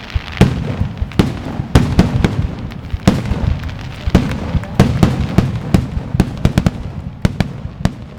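Fireworks going off in a rapid, irregular string of loud bangs and crackles over a continuous low rumble.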